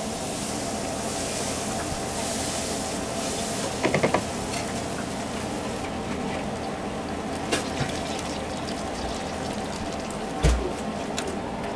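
Battered onion rings sizzling in hot oil, with the hiss easing off about six seconds in. A few sharp clicks of utensils against the pan come about four and eight seconds in, and a dull knock near the end.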